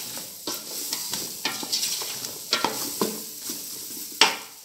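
A spoon stirring sliced cooked carrots and fried calabresa sausage in a metal pot, scraping and knocking against the pot several times a second, over the sizzle of the frying fat. The loudest knock comes near the end.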